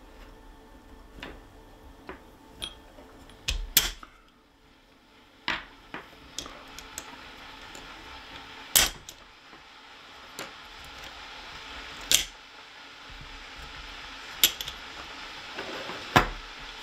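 Metal parts of an Umarex HDX 68 air gun clicking and clinking as it is taken apart by hand, with a handful of sharper knocks spaced irregularly, over a faint steady hiss.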